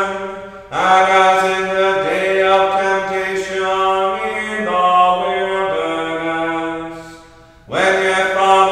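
A lone man's voice chanting liturgical text in plainsong. He holds long notes mostly on one reciting pitch, then steps lower toward a cadence, with a pause for breath about a second in and again near the end.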